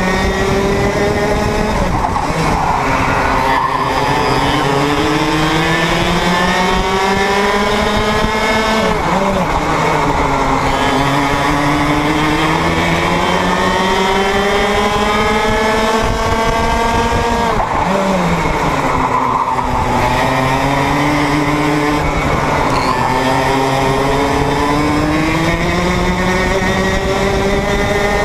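Two-stroke racing kart engine heard onboard at racing speed: the engine note climbs steadily for several seconds at a time, dropping sharply under braking about 9 and 18 seconds in before climbing again.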